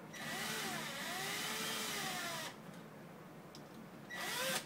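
Cordless drill/driver driving the mounting screws of a deadbolt's back housing: one run of about two and a half seconds with the motor pitch rising and falling, then a short second burst near the end.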